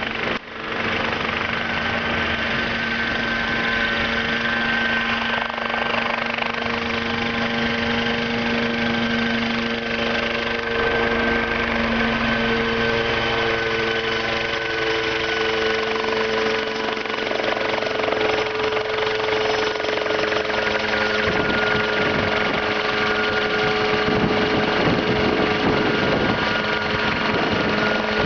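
Engine of a homemade single-seat helicopter running steadily, a constant pitched hum whose tone shifts slightly about twelve seconds in, with the machine hovering low overhead near the end.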